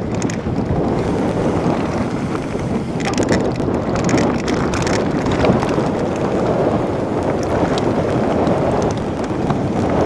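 Wind buffeting the microphone and mountain-bike tyres rumbling over a rough gravel-and-grass track on a fast descent, with frequent short rattles and clicks from the bike over the bumps.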